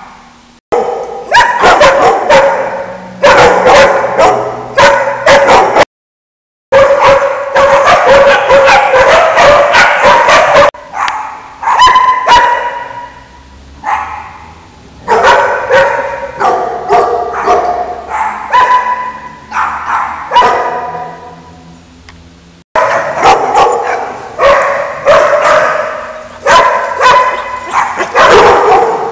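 Dogs barking and yipping in rapid, loud volleys, with short lulls between runs; the sound drops out completely for under a second about six seconds in.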